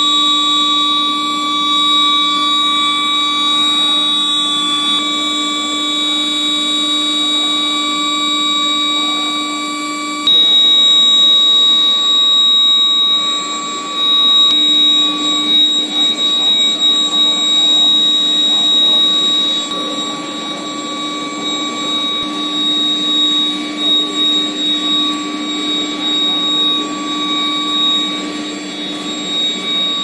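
Induction hardening furnace line running: a steady electrical whine made of several held high and mid tones over machine noise, typical of the induction heating power supply and coils at work. It steps up in loudness about a third of the way in.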